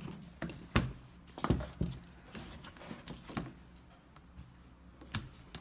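A night vision goggle helmet mount and connector being handled: about six separate sharp clicks and knocks of plastic and metal parts, spread over a few seconds.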